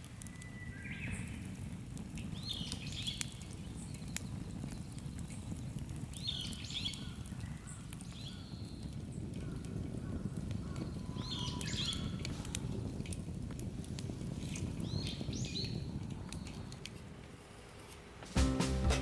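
A bird calling outdoors, short chirping calls repeated about every four seconds, over a steady low rumble like wind on the microphone. Music comes in just before the end.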